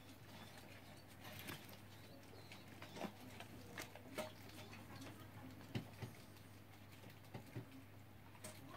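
Near silence: faint room tone with a steady low hum and scattered light clicks and ticks.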